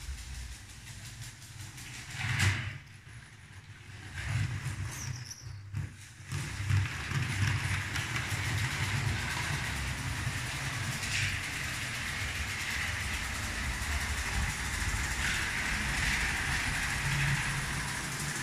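Lego 12-volt model train running on plastic track: motor hum and wheel noise, uneven at first, then running steadily from about six seconds in.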